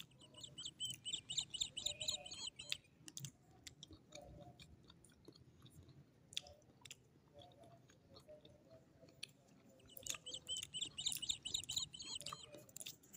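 Close, wet mouth sounds of a hard swirl lollipop being licked and sucked: many short clicks and smacks. Small birds twitter in two short spells in the background, one near the start and one near the end.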